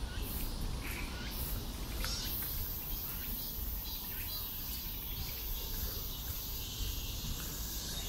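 Summer insects buzzing and chirping: a high, steady buzz that swells about two and a half seconds in, with a few short chirps over a low background rumble.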